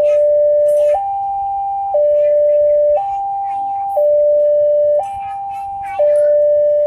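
Railway level crossing warning alarm sounding: an electronic two-tone signal alternating between a higher and a lower tone, each held about a second, repeating without a break.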